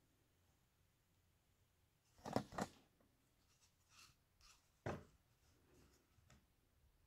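Light wooden knocks and handling noises as a hollowed log planter is turned over and set down on a wooden board: two close knocks a little over two seconds in, a sharper one near five seconds, and a few faint taps between.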